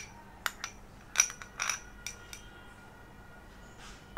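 Tableware clinking: a small glass bowl and a steel spoon knocking against a glass plate, about seven sharp clinks with brief ringing in the first two and a half seconds, then quiet.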